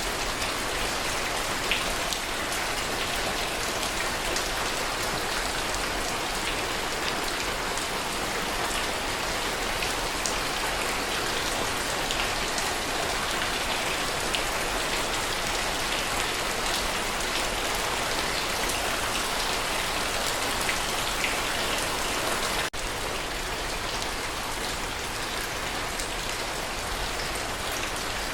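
Steady heavy rainfall, a dense even patter with scattered individual drop hits. It breaks off for an instant about two-thirds of the way through and resumes slightly quieter.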